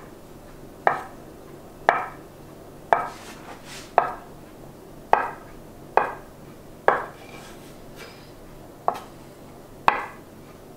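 Chef's knife cutting a rope of soft gnocchi dough into pieces on a wooden cutting board, the blade knocking against the board once with each cut. The sharp knocks come at a steady pace of about one a second, each ringing briefly.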